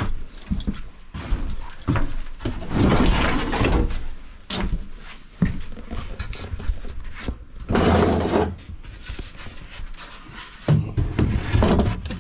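A wooden cabinet door opening and a loose plywood door panel being handled, with knocks and scrapes of wood on wood. The loudest stretches come about three seconds in and again near eight seconds.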